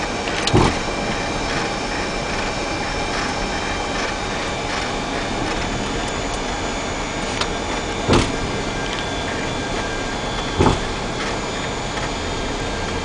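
Steady cockpit noise of a Boeing 737 taxiing, the engines and air systems running with thin high whines from the instruments over it. Three short thumps break it, about half a second in, at about eight seconds and near eleven seconds.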